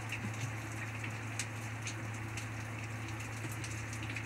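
Steady rain falling, an even hiss with scattered sharper drop ticks close by, over a steady low hum.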